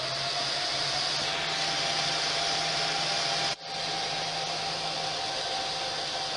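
Dell PowerEdge R720 server's cooling fans running: a steady whoosh with a high whine that rises a little in pitch within the first second. The sound drops out for an instant about three and a half seconds in.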